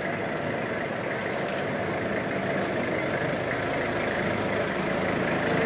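A van's engine running as the van rolls slowly toward the listener, growing gradually louder.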